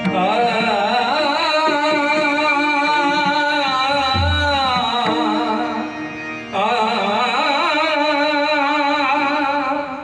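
A male bhajan singer holding long, heavily ornamented sung notes in two long phrases, with a short break about six and a half seconds in, over steady sustained accompaniment notes. A single deep drum stroke sounds about four seconds in.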